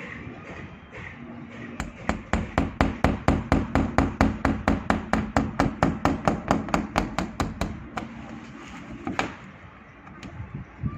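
Rapid, even knocking, about five strikes a second for some six seconds, as the crack in a plastic water tank is cut open, over a steady low hum. One more sharp knock follows a moment later.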